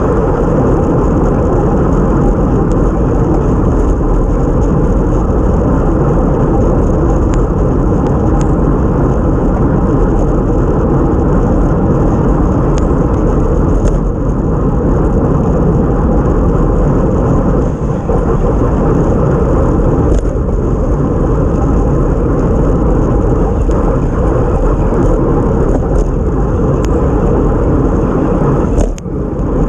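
Steady rush of wind over the microphone of a bike-mounted action camera at race speed, mixed with tyre noise on a wet road. Scattered faint clicks and knocks come through, and the noise dips briefly near the end.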